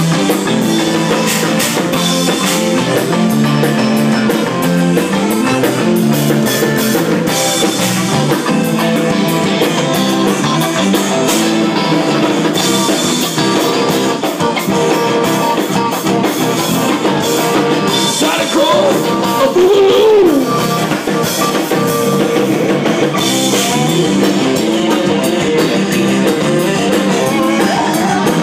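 Live zydeco band playing: accordion, electric guitar and drum kit, loud and steady, with a sliding note about two-thirds of the way through.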